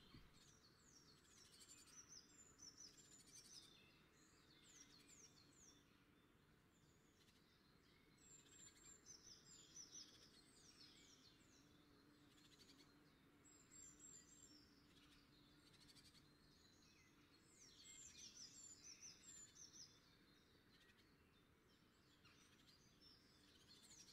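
Faint bird chirping: short runs of quick, falling chirps that recur every few seconds over a quiet background.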